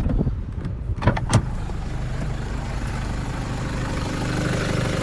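Vehicle engine running steadily, with two sharp clicks a little over a second in.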